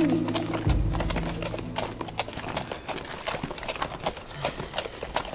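Horse hooves clip-clopping in a quick irregular patter, as a film sound effect. Film score music fades out over the first two seconds, and a steady faint high tone runs underneath.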